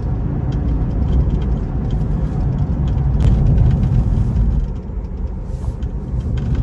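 Road and tyre noise inside the cabin of a Tesla Model 3 electric car driving on snow-covered pavement: a steady low rumble with no engine note, and a few faint light ticks.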